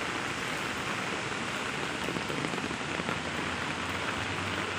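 Heavy rain falling steadily on a wet street and pavement.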